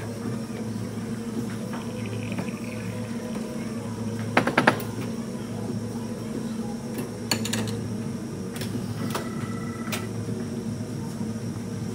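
Steady hum of cafe kitchen equipment, with a brief clatter of kitchenware about four and a half seconds in, a single knock a few seconds later, and a short steady tone around nine seconds.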